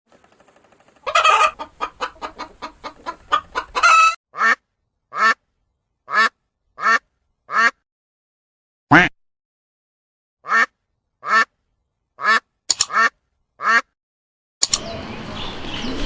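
Duck quacking: a fast run of quacks, then single quacks spaced about a second apart. A noisier stretch with other calls cuts in near the end.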